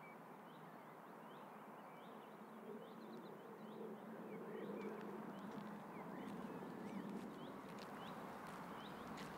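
Faint outdoor ambience: many small birds chirping in short, quick calls over a steady low background hum.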